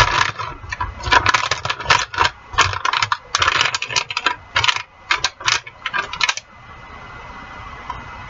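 A utensil clattering and scraping against a skillet of frozen chicken pieces, in quick irregular clinks for about six seconds. The clatter then stops, leaving a steady low hiss.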